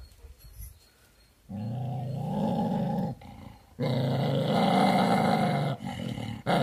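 Dog growling in long, low growls, the first starting about a second and a half in, a second following after a short break, and a third beginning near the end. The growls are aimed at its own reflection in a mirror.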